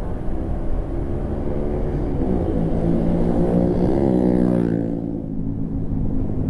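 Motorcycle engine running under way, with heavy wind rumble on the microphone. The engine's pitch climbs over the first few seconds and drops away about five seconds in.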